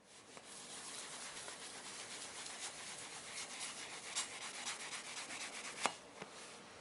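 Hand rubbing against a hard surface, a steady scratchy noise made of quick strokes, ending with a sharp click about six seconds in.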